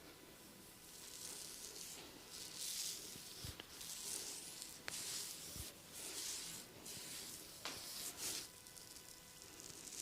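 Hands rubbing and scratching over skin or hair in an ASMR massage, in soft swishing strokes about once a second, with a couple of faint knocks.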